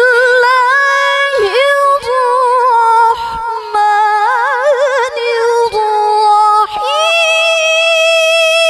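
A female Quran reciter (qariah) chanting in the melodic, ornamented tilawah style through a microphone. She holds long notes with wavering melismatic runs and brief breaks, then climbs to a higher sustained note about seven seconds in.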